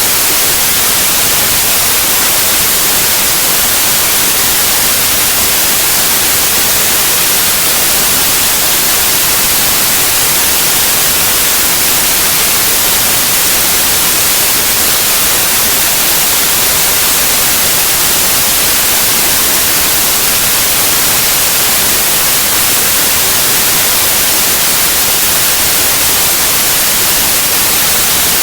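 White noise: a steady, loud, unchanging hiss with its energy spread evenly up into the high frequencies.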